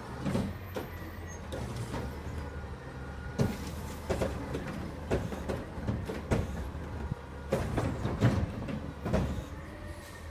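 Garbage truck's engine running steadily at a distance, with a series of irregular knocks and clunks about every half second to second.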